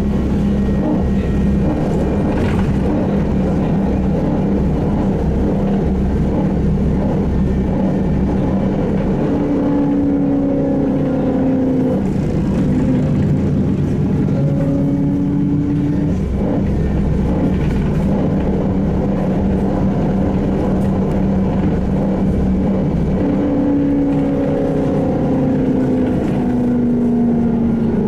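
SVARZ-MAZ-6235.00 trolleybus in motion, heard from inside: a steady rumble and hum from the running gear and body. Over it, the electric traction motor whines in stretches, its pitch shifting with speed and falling near the end as the bus slows. A few light knocks are heard.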